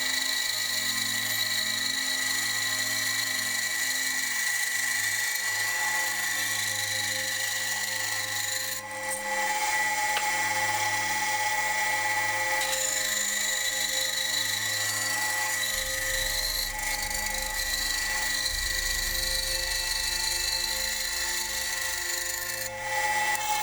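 Bandsaw running steadily with a whine while cutting a rounded shape out of a wooden handle scale.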